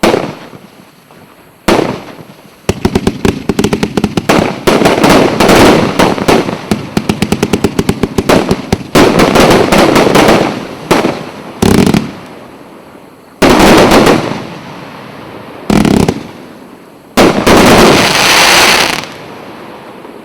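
Multi-shot fireworks cake (1.2-inch, 250-shot battery) firing its finale: a rapid string of shots and aerial bursts for several seconds, then a few separate heavy volleys, the last one long and dense.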